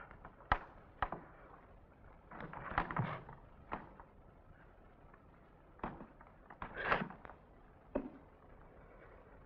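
Bare feet on a stage floor: several short sharp knocks from steps and stamps, and two longer scuffing slides, over a faint steady hiss.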